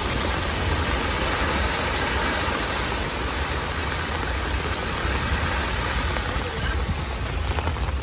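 Fast muddy floodwater rushing and churning across a road and through grass, with rain falling. A steady low rumble runs underneath.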